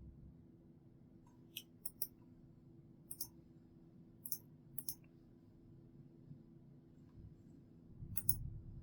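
Mouse-button clicks, several in quick pairs like double-clicks, over a faint steady hum.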